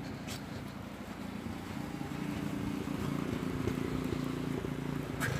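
An engine running steadily, a low hum that grows a little louder about two seconds in, with a couple of short clicks.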